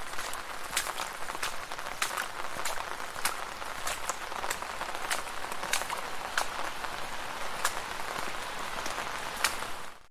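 Rain falling on a street: a steady hiss with frequent sharp, irregular taps of drops striking hard surfaces. It cuts off abruptly at the very end.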